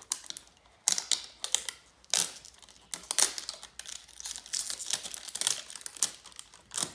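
Wrapping being peeled in a long strip off an LOL Surprise toy ball, crinkling and tearing in irregular crackles.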